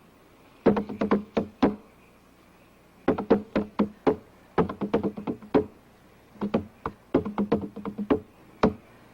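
Drums beaten by hand in short rhythmic flurries of four to six strokes, each flurry followed by a pause of about half a second to a second, on a film soundtrack.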